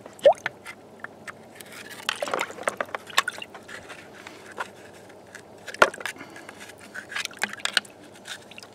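Scattered clicks, knocks and scrapes as water-softened investment mould material is broken away from a freshly cast aluminium piece, with a sharp knock about six seconds in.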